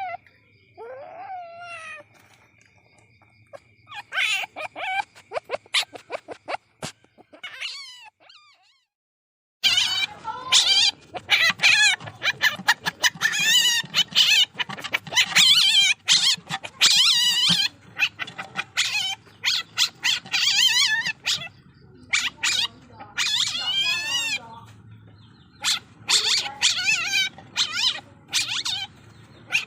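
Baby civet (musang) calling: short, high-pitched, quavering squeals. A few come singly at first, then after a brief dead gap about nine seconds in they follow in a rapid, dense run.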